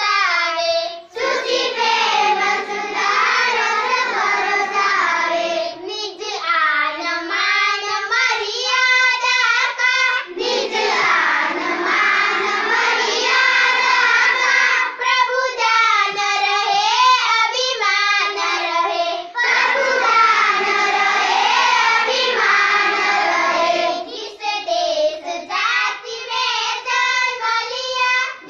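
A large group of schoolchildren singing a prayer together in unison, in long phrases with short breaks between them.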